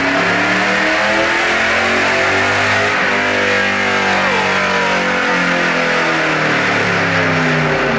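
2000 Pontiac Trans Am WS6's LS1 V8 at full throttle on a chassis dyno, pulling through third gear with its pitch climbing steadily for about seven seconds, then dropping off near the end as the pull finishes.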